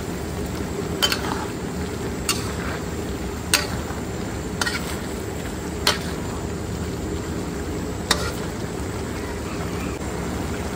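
A metal ladle stirring tofu and prawns in a simmering sauce in an aluminium wok, clinking against the wok about six times, roughly once a second, over a steady sizzle.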